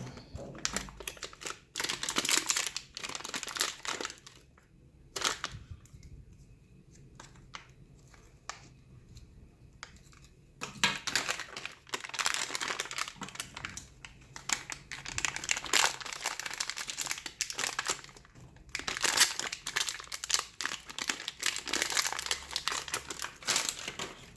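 New ink cartridge packaging being torn open and crinkled. The crinkling comes in bouts, with a quieter spell of several seconds in the middle and near-continuous crinkling through the second half.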